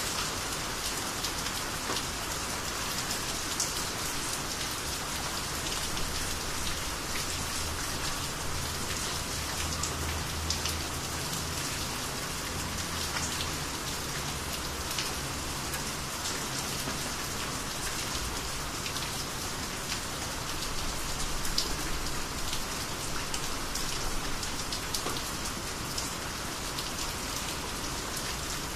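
Steady rainy-season rain falling, an even hiss dotted with the ticks of single drops hitting surfaces. A low rumble sits underneath in the middle stretch.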